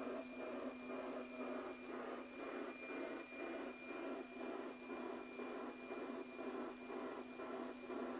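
NOAA 15 weather satellite's APT picture signal from the Yaesu FT-847 receiver's speaker: a steady high tone over hiss with a rhythmic tick-tock about twice a second, one tick per image line. It is coming through strong and being decoded into a picture, with a low hum underneath.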